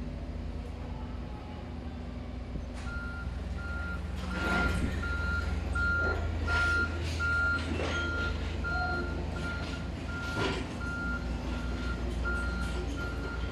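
Construction machine's backup alarm beeping steadily about twice a second, starting about three seconds in, over a low engine drone. A few loud metallic clanks ring out in the middle.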